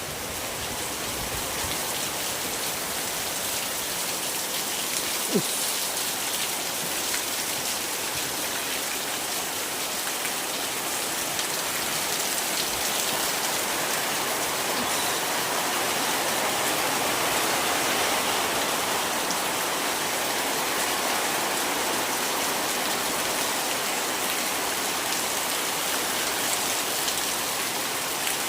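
Steady rain falling, a continuous even hiss, with one short sharp knock about five seconds in.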